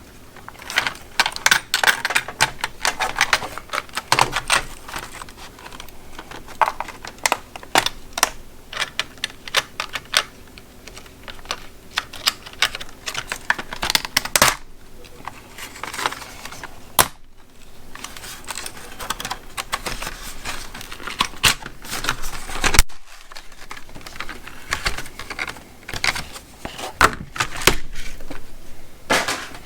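Thick, hard plastic clamshell packaging being cut, pried apart and handled, making many irregular sharp clicks, crackles and taps.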